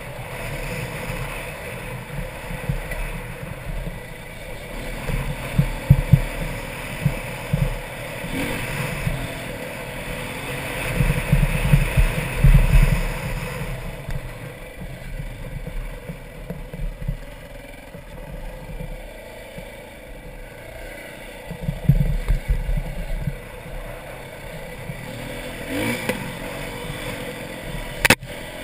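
Dirt bike engine running under way, rising and falling with the throttle, mixed with rough wind buffeting on the helmet microphone. Louder surges come now and then, and there is one sharp knock shortly before the end.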